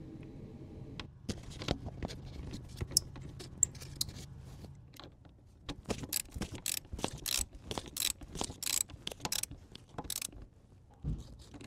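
Socket ratchet clicking as it tightens the negative battery cable's bolt onto a side-post battery terminal. Scattered clicks and taps at first, then quick runs of ratchet clicks from about halfway, and a low knock near the end.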